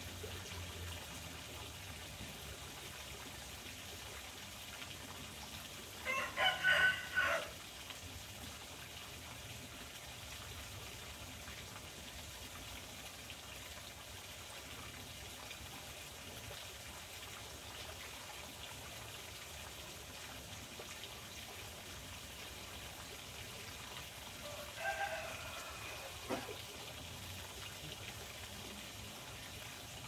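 A rooster crows once, about six seconds in, over a steady trickle of running water. A second, shorter and fainter call comes near the end.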